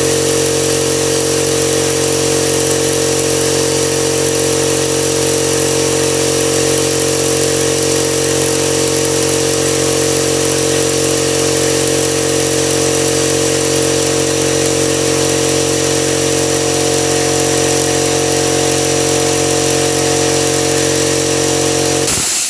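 Husky 5-gallon air compressor's motor and pump running steadily as the tank builds pressure, then cutting off suddenly near the end as the newly fitted pressure switch trips, with a short hiss of air. The cut-off shows the replacement switch has cured the compressor's failure to shut off.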